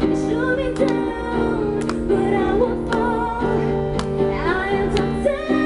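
A woman singing while strumming an acoustic guitar, a solo live performance through a microphone, with a strum about once a second under the melody.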